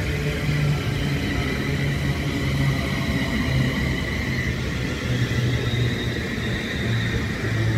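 London Northwestern Railway Class 350 Desiro electric multiple unit running past along the platform: a steady rumble of the wheels and bogies, with a steady high whine over it.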